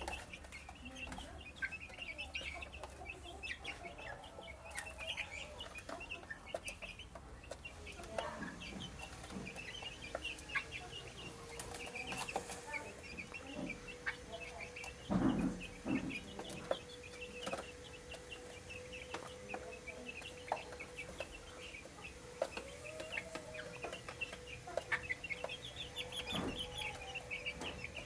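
A flock of young chickens peeping constantly in short high calls while they feed, with many sharp taps of beaks pecking at the feeder trough. A couple of dull knocks come about halfway through.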